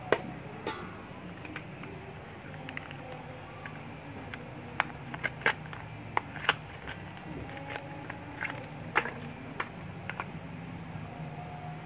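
Scattered sharp clicks and taps from a metal spoon against a stainless steel mixing basin and from a small medicine packet being handled, over a steady low hum. The sharpest tap comes right at the start, with a cluster of clicks in the middle.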